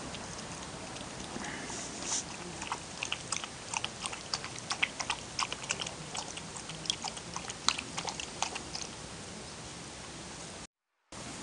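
A Siamese cat with its head in a basin makes a run of small, irregular mouth clicks, several a second, over a steady hiss. The clicks stop about nine seconds in, and the sound cuts out briefly near the end.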